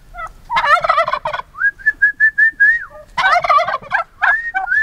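Domestic turkey toms gobbling in answer to a person's whistling. Two loud group gobbles come about half a second in and about three seconds in, with a run of short, even whistled notes between them.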